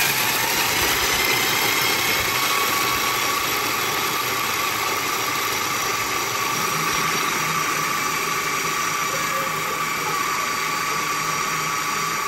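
KitchenAid food processor running steadily on high, its blade grinding pumpkin seeds down to a powder. A steady whine over a dense hiss, the whine growing clearer about three seconds in.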